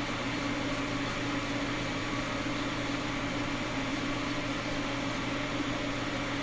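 Steady hum and whir of an electric fan or blower motor running without change.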